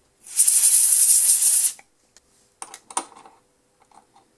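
A short blast of compressed air, about a second and a half of hiss, blowing chips out of the insert pocket of a lathe threading tool holder so the insert seats flat. A few light metal clicks follow as the insert is handled at the holder.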